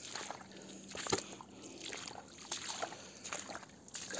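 Irregular clicks, knocks and rustles of a phone camera being picked up and moved.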